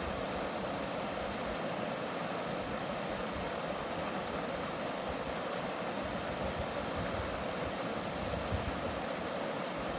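Mountain valley stream flowing: a steady, unbroken rush of water over rocks.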